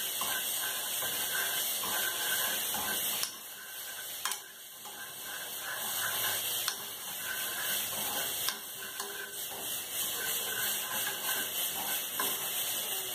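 Chopped garlic sizzling in hot oil in a pot as it is stirred with a spoon, a steady hiss that eases off briefly about a third of the way in, with a few light clinks of the spoon against the pot.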